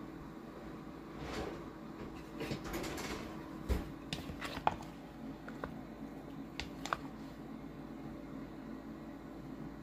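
A wooden spoon turning raw chicken thighs through a thick sauce in a bowl, knocking against the bowl in a few sharp clicks and taps, over a faint steady hum.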